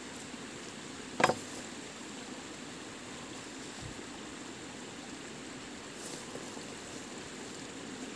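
Steady hissing outdoor background noise, with one sharp knock about a second in.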